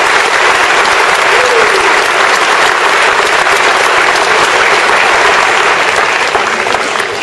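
A large audience of some 3000 people applauding in a standing ovation: dense, steady clapping that begins to fade near the end.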